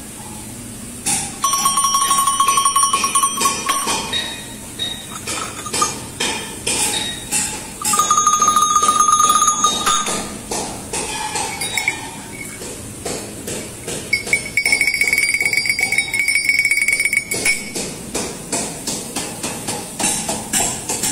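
Metal sheep bells shaken and clanking against each other, their clappers rattling. Now and then a single bell rings out with a steady tone for two to three seconds: once about a second in, again around eight seconds, and a higher-pitched one around fourteen seconds.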